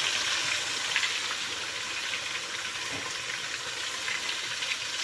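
Chopped onions sizzling in hot palm oil in a cooking pot: a steady frying hiss with small crackles.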